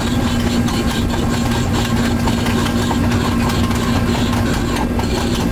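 Casey Jr. Circus Train miniature railroad rolling along its track, heard from the rear car: a steady rumble with a constant low hum and light, irregular clicking from the wheels and cars.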